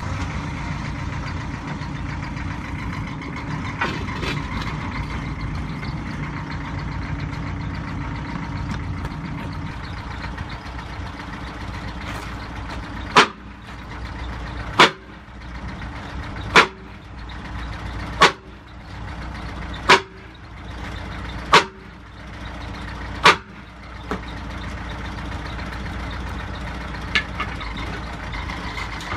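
Bobcat B300 backhoe loader's engine running steadily; about halfway through, seven sharp strikes a little under two seconds apart, each with a short metallic ring, as a sledgehammer hits a bent AR500 steel gong plate while trying to flatten it.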